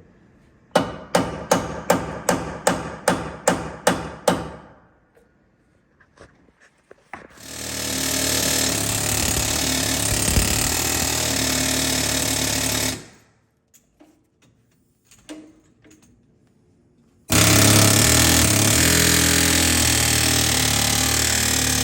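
A quick run of about a dozen hammer blows on metal, roughly three a second, then two long bursts of a pneumatic air hammer chiseling, each lasting several seconds, used to drive out seized fasteners on a bus's torsion suspension.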